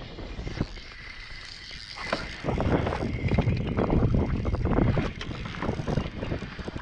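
Wind buffeting the microphone, heaviest from about two and a half to five seconds in, with scattered small clicks from a spinning rod and reel being cast and reeled in.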